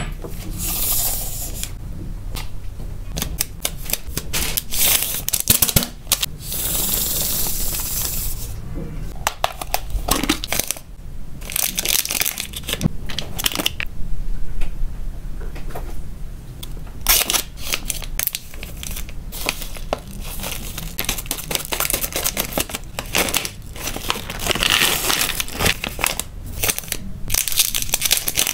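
Thin plastic bags and packaging crinkling and rustling as they are handled and opened, in repeated bursts, with small clicks and taps from biscuits and plastic parts.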